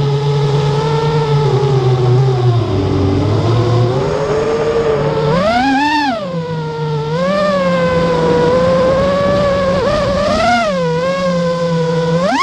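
A motor damaged in a crash running with a whine that rises and falls in pitch several times as its speed changes; the sound is the sign of the crash damage.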